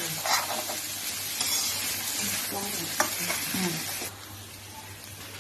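Chicken, corn and capsicum filling sizzling in a frying pan while a spatula stirs and breaks up the chicken, with a sharp tap of the spatula against the pan about three seconds in. The sizzle drops away about four seconds in.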